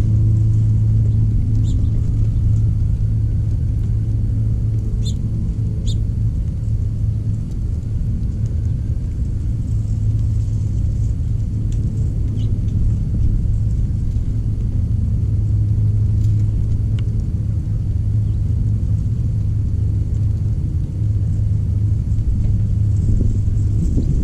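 A steady low rumble, with a few faint, short high chirps or clicks scattered through it.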